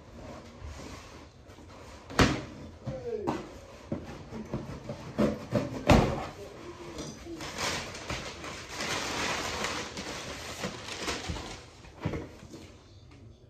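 A cardboard package being handled and opened: a few sharp knocks, the loudest about six seconds in, then several seconds of packaging rustling.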